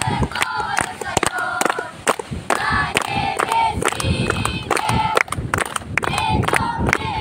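A crowd of voices raised together in long held notes, singing and shouting in unison, with many short sharp knocks throughout.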